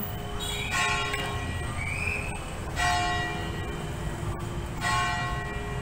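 Church bell tolling three times, about two seconds apart, each stroke ringing for about a second over a low hum of street traffic.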